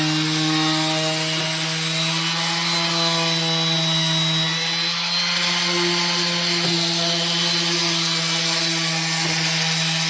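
Makita random orbital sander running steadily against teak trim, a constant motor hum with an even pitch.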